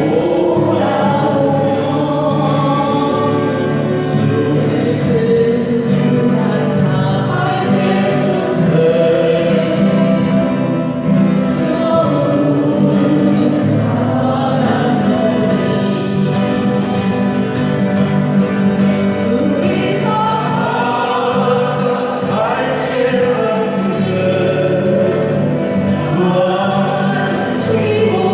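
A group of voices singing a slow ballad together, accompanied by acoustic guitars.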